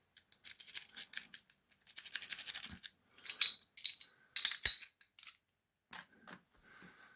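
A five-peak steel rake scrubbed in and out of the keyway of a TESSI 60 mm pin-tumbler padlock under a tension wrench: runs of rapid scraping clicks as it rakes over the pins, then a few louder, sharper metallic clicks with a slight ring. The lock has flat bitting and no security pins, which is what makes it easy to rake.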